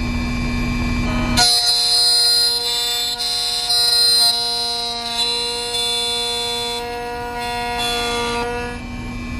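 Electronic key-cutting machine milling a car key blade: a high whine with several steady pitches comes in about a second and a half in and stops shortly before the end, over a steady motor hum.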